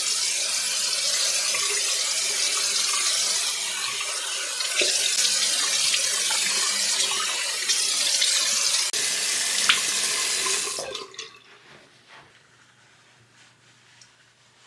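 Water running steadily from a tap into a sink, shut off about eleven seconds in, followed by a few faint small knocks.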